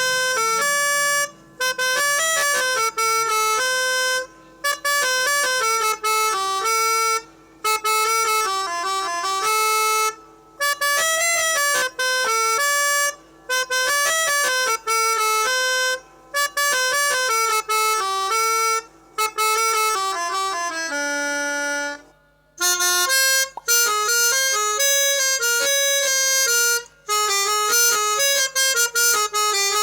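Pianika (melodica) playing a telolet basuri bus-horn tune in short melodic phrases of about three seconds with brief breaks. About three quarters through, a phrase settles onto one long, low held note before the tune resumes.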